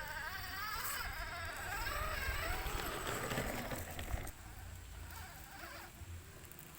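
Small electric motor of a toy RC off-road car whining, its pitch wavering up and down with the throttle, dropping away a little after four seconds in.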